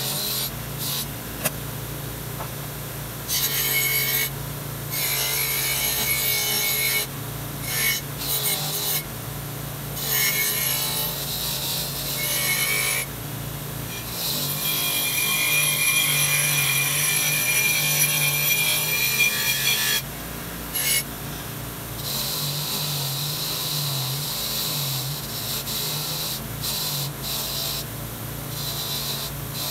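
Bench grinder with a wire wheel running with a steady motor hum. Steel compass-plane parts are pressed against the wire brush in repeated passes, each making a harsh scratching hiss that starts and stops. The longest pass falls in the middle and lasts about six seconds.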